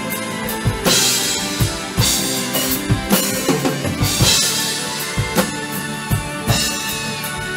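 Acoustic drum kit played along to a recorded music track: a steady kick-and-snare beat with cymbal crashes every second or so over the song.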